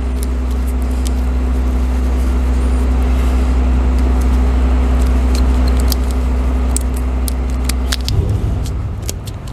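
An engine running with a steady deep rumble that changes and wavers about eight seconds in. Light clicks and rattles of hand work sound over it.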